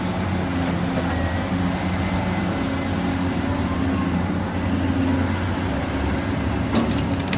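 A radio-controlled model construction vehicle's motor running steadily, a low hum with a faint high whine, with a few light clicks near the end.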